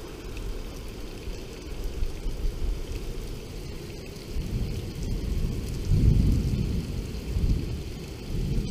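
Thunder rumbling over steady heavy rain. The rumble sets in about halfway through and comes in swells, loudest about six seconds in.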